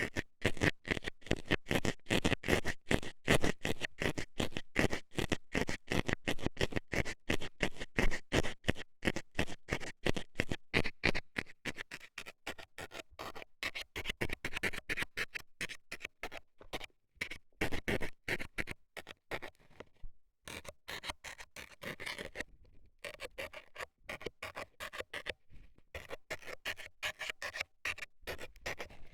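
Steel dental scaler scraping and jabbing in an ear microphone in rapid short strokes, several a second, with brief pauses about 20 and 23 seconds in.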